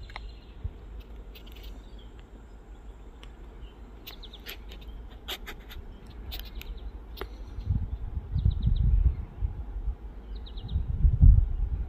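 Birds chirping in short, scattered high calls over a quiet outdoor background, joined in the last few seconds by loud, irregular low rumbling.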